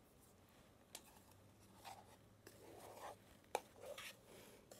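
Faint scraping of a spatula working soft-serve ice cream out of a metal ice-cream-maker bowl into a glass container, with a sharp tap about a second in and another after three seconds.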